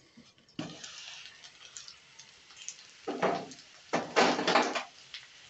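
Lid lifted off a covered aluminium kadhai about half a second in, letting out the sizzle of potatoes and pointed gourd frying in oil. Two louder bursts of metal clatter and sizzle follow at about three and four seconds as the lid and pan are handled.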